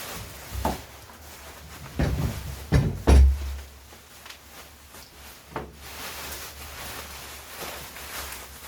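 Cardboard box and the parts packed in it being handled: a few dull thumps and knocks, the loudest about three seconds in, then a softer rustle.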